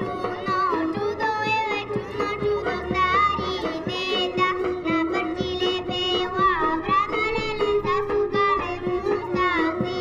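Traditional Bulgarian folk music: an ornamented melody with wavering, bending notes over a steady held line and a quick rhythmic accompaniment.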